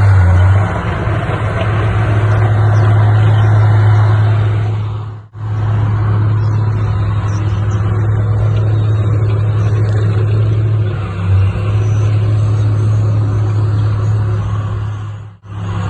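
Heavy diesel earthmoving machinery running steadily with a deep drone, cutting out abruptly for a moment twice.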